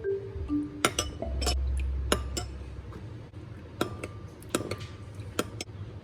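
Utensils clinking against dishes: a handful of separate sharp clinks spread over several seconds, with a low rumble of handling early on.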